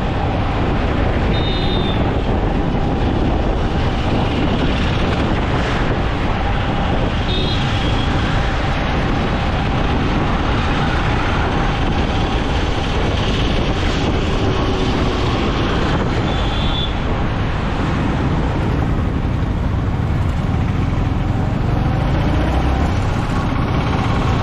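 Steady road and traffic noise while riding a Yamaha MT-15 motorcycle through town: engine, tyres and passing vehicles. Three short high beeps come through about a second in, at about seven seconds and near two-thirds of the way.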